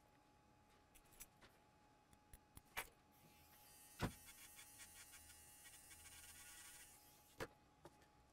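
Faint bench work with a battery-operated grinding pen on a tiny circuit-board trace: a few light clicks and taps, the sharpest about four seconds in, and a faint high hiss from about three to seven seconds in while the tip is on the board.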